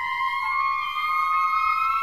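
Avant-garde music: a sustained high tone gliding slowly upward, doubled by a fainter tone about an octave above.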